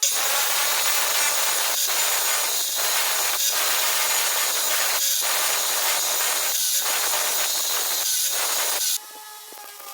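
Electric welding arc on steel: a steady hissing crackle that starts abruptly, runs with a few brief breaks, and cuts off suddenly about nine seconds in.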